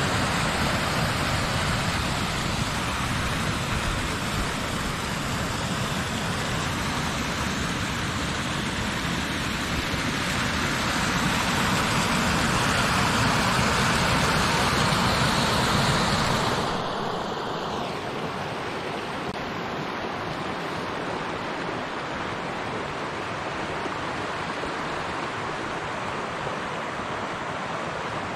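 Small forest waterfall rushing steadily over a rock ledge. About 17 seconds in it gives way to the quieter, even rush of the river flowing over shallow riffles.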